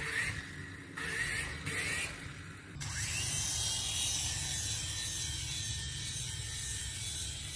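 Small toy RC helicopter's electric motors and rotor blades whirring. In the first few seconds, short bursts each begin with a rising whine as the motors spin up. After that the whir is steady while the helicopter hovers and flies.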